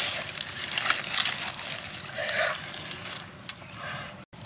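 Close-up wet chewing and crunching of food, irregular crackles and smacks.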